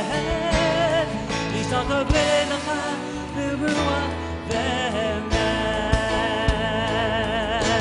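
Live worship band playing: drums keep a steady beat under bass and guitar, with a wavering, vibrato melody line over the top.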